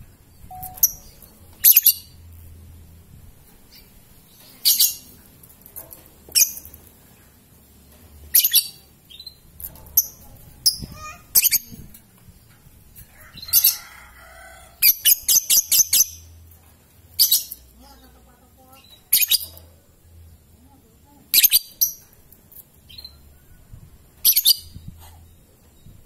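Fischer's lovebirds giving short, sharp, high-pitched chirps every second or two, with a quick run of about six chirps around the middle.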